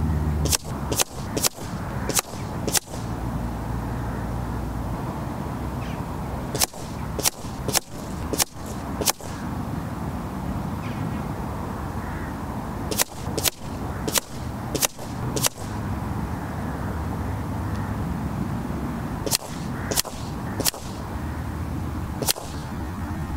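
Air Arms S510 .177 sub-12 ft-lb PCP air rifle firing slugs: sharp cracks in four quick strings of about five shots each, roughly half a second apart.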